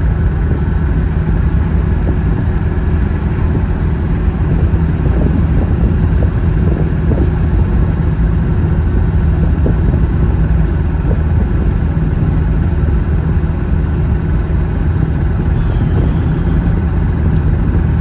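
Steady engine and road noise heard inside a moving vehicle's cabin at cruising speed: a low, even drone.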